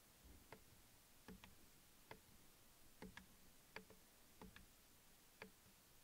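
Faint, sharp clicks of the steering-wheel menu buttons being pressed, about a dozen at uneven intervals with some in quick pairs, as the instrument-cluster settings menu is scrolled.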